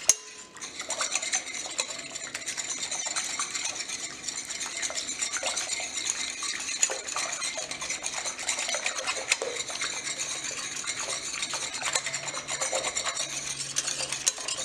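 A Danish dough whisk stirs sourdough starter into water in a glass mixing bowl. After a single knock at the start, there is steady swishing of the water and rapid clicks of the whisk's wire loops against the glass.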